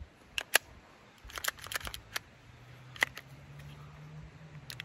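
Sharp clicks and clacks of a Glock 44 pistol and its magazine being handled: a couple of single clicks, a quick cluster of them, then two more single clicks. A faint low steady hum comes in about halfway through.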